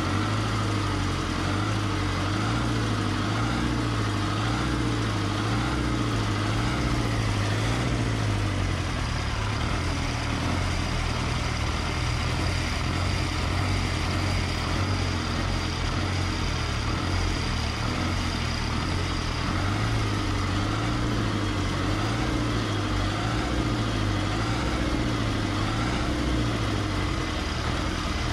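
Freshly overhauled air-cooled VMZ T-28 tractor diesel engine running steadily at idle, just after a major rebuild.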